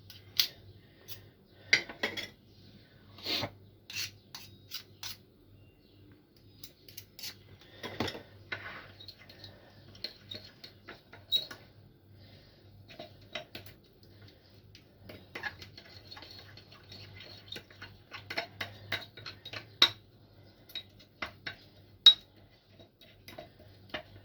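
A spoon clinking and scraping against a small bowl in irregular taps while a thick honey mixture is stirred.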